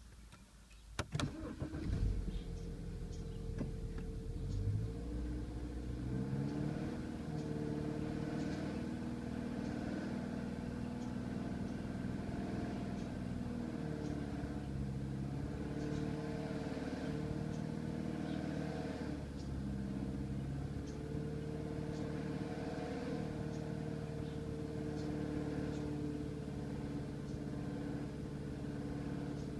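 BMW 318i E91's N43B20 four-cylinder petrol engine cranking and catching about a second in from a cold start, then idling steadily with slight wavers in pitch; the owner finds the cold-start engine sound strange.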